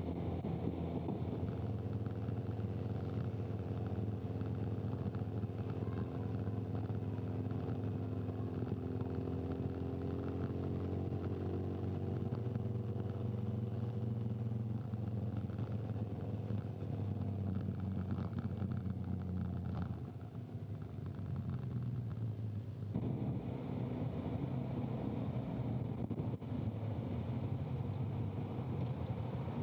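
Camera motorcycle's engine running steadily at low speed close to the microphone, with an even rush of wind and road noise. The sound drops about twenty seconds in and changes abruptly a few seconds later.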